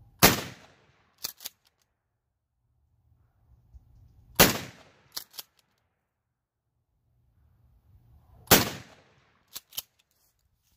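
Shotgun with a modified choke firing slugs: three loud shots about four seconds apart, each followed about a second later by two quick sharp clacks.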